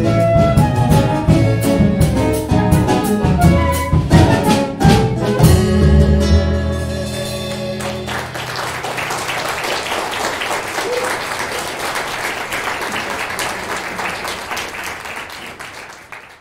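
A small acoustic band of nylon-string guitar, string quartet section with double bass, and drum kit plays its closing bars, with drum hits, and ends on a held final chord. Then the audience applauds, and the applause fades out near the end.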